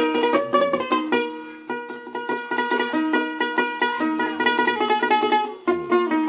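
Dotara, the Bengali long-necked plucked lute, played solo in a quick run of plucked notes over a repeated low note. The melody thins out briefly around two seconds in, then picks up again.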